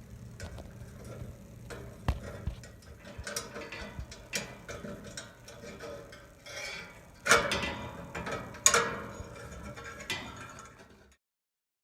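Socket wrench ratcheting and metal tools clicking and knocking while the old thermocouple fittings are undone, with two louder clanks about seven and nine seconds in. The sound cuts off abruptly near the end.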